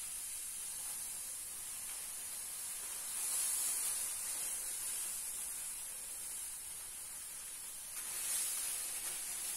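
Granulated sugar poured into a large pan of hot, bubbling cherry plum purée: a steady hiss that swells about three seconds in and again around eight seconds.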